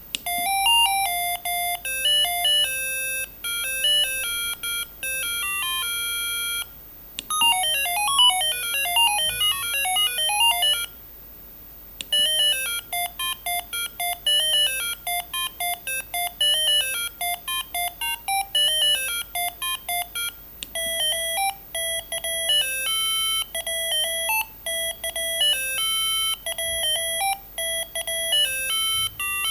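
Siemens A55 mobile phone playing its built-in ringtones one after another: bright electronic beeping melodies. A new tune starts about 7 seconds in, and another follows a short pause near 11 seconds.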